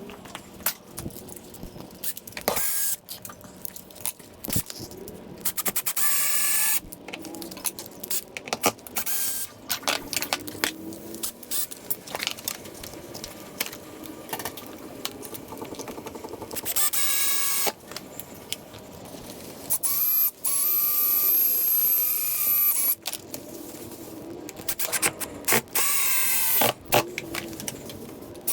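Power drill driving screws in several short runs, the longest about three seconds, with clicks and rattling of screws and hardware between runs.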